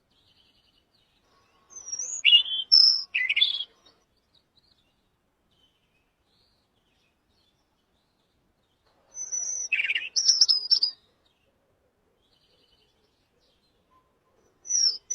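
A bird singing short phrases of quick, high chirps and whistles, three times with gaps of several seconds between them.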